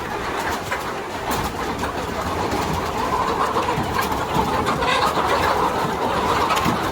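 A large flock of chickens calling all at once, a dense, steady din with a few scattered clicks and knocks.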